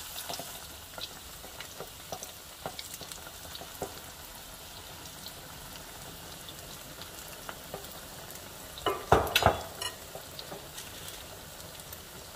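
Egg foo young patty of beaten egg, shrimp and bean sprouts deep-frying in hot oil in a wok: a steady sizzle with scattered crackles as the batter sets. About nine seconds in there is a short, louder burst of clattering.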